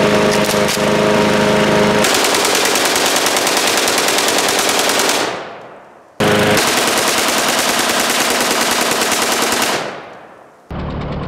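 A gasoline push lawn mower engine running steadily, then a full-auto AK-47 firing long rapid bursts into it, about two seconds in and again about six seconds in, each dying away afterwards.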